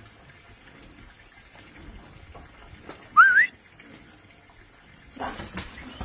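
A single short whistle, rising in pitch with a wiggle, about three seconds in. Near the end, cattle hooves squelching and splashing through mud.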